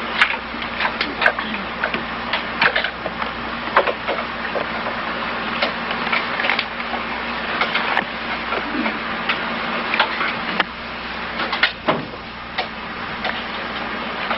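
Scattered light clicks and taps, irregularly spaced, as the magnetic motor prototype's aluminum injectors are handled and oiled against galling. The motor is stopped. A steady hiss and hum lie underneath.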